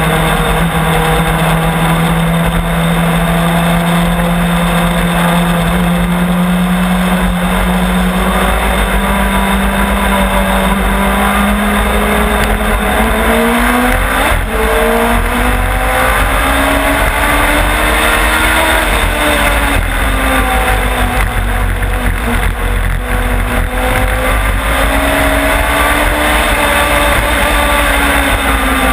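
Race car engine heard from a camera mounted on the car, running at a steady low pitch at first. From about twelve seconds in it climbs, then rises and falls in pitch as the driver accelerates and lifts around the oval.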